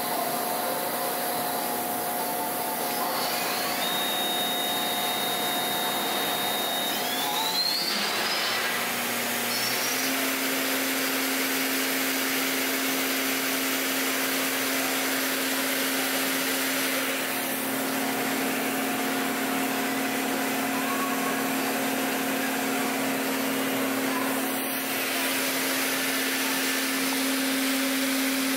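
2005 Mighty Viper B3000PXT CNC bridge mill running, its spindle turning under power with a steady whirring hiss. A high whine glides upward about seven to eight seconds in, after which a steady low hum holds.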